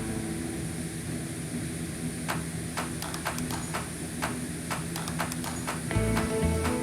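Background music in a quieter passage: sustained low tones under a light, evenly spaced clip-clop percussion, about two clicks a second, starting about two seconds in. The fuller beat comes back near the end.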